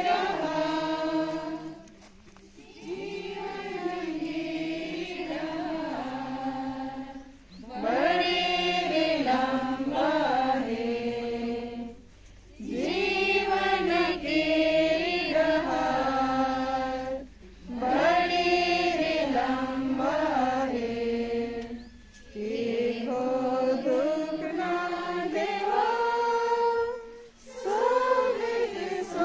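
A group of mourners singing a funeral hymn together, in phrases of about four to five seconds with short pauses for breath between them.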